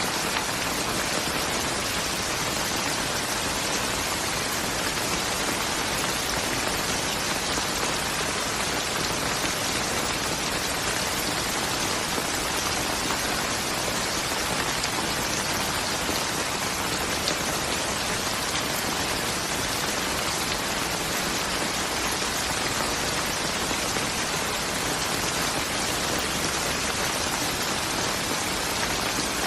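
Steady heavy rainfall, an even hiss of rain falling on surfaces, with no single drops or breaks standing out.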